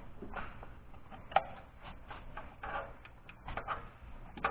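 Light, irregular clicks and taps of metal parts and hand tools being handled in a truck's engine bay, with one sharper click about a second and a half in.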